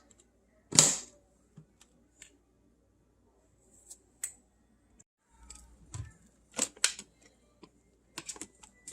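A few scattered sharp clicks and light knocks, the loudest about a second in and a cluster near the end, with no motor running.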